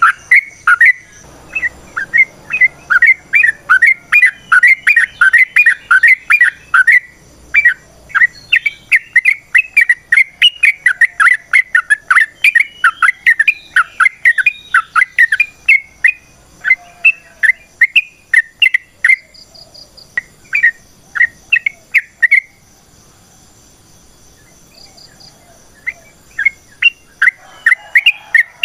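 Yellow-vented bulbul (trucukan) singing a long, fast run of sharp chirping notes, about three or four a second. The run thins out past the middle, stops for a few seconds and starts again near the end.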